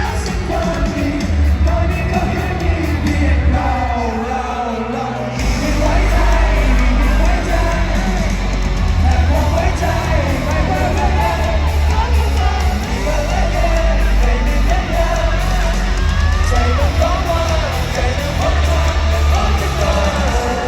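Live pop music played loud through a concert PA system, a singer's voice over a heavy bass beat, with audience shouts. The beat thins out briefly and comes back in fuller about five seconds in.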